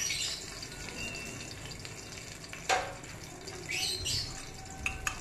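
Chicken tikka piece sizzling in ghee in a frying pan, a steady hiss with a single sharp tap a little past halfway.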